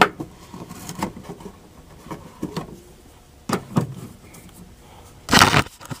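Hand-tool work on a refrigerator's back panel: a few light clicks and knocks from a screwdriver and the panel, then a louder scrape of about half a second a little past five seconds in.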